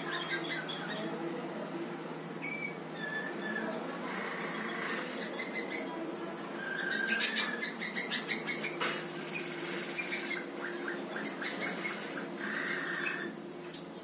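Malinois (Waterslager) canary singing: short whistled notes, then a fast rattling roll in the middle, and a held whistled note near the end.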